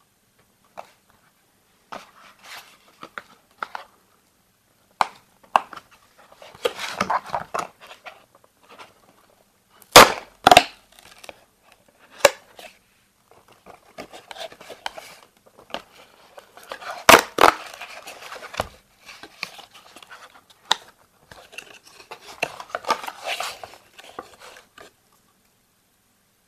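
Hands handling and opening a cardboard Kinder Surprise multipack box: scattered clicks and rustling of cardboard, with two loud double snaps, about ten seconds in and again about seven seconds later, as the box is opened. Near the end, rustling as a foil-wrapped chocolate egg is taken out.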